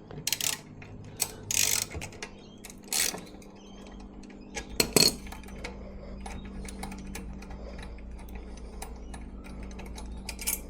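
Metal tool clicks and clinks as the grub screw holding the baffle in a Musarri motorcycle exhaust is undone, with a steady low hum underneath.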